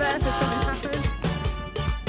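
Background music with a steady drum beat and a melody over it.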